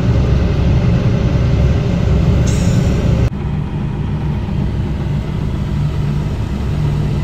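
Car engine running, with a steady low rumble heard from inside the cabin. The rumble drops a little about three seconds in, and there is a brief high hiss just before.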